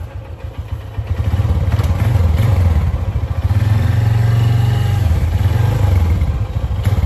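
Honda motorcycle engine running as the bike pulls away carrying two riders, growing louder about a second in and then holding steady.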